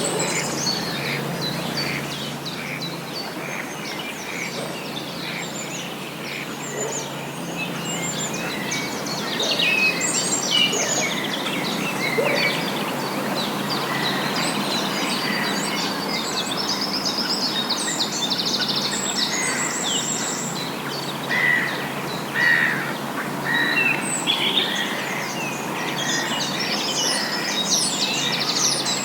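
Several songbirds singing and calling, many short chirps and trills overlapping throughout, over a steady low background rush and hum.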